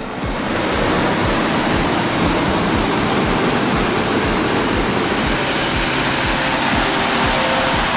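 A loud, steady rushing noise, with a regular low thump about three times a second beneath it.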